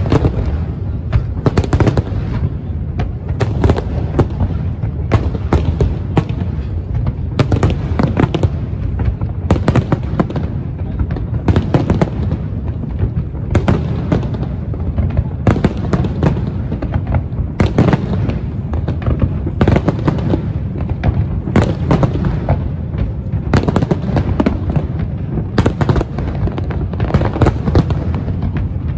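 Fireworks display: a continuous barrage of aerial shell bursts, sharp bangs coming several times a second over a heavy low rumble.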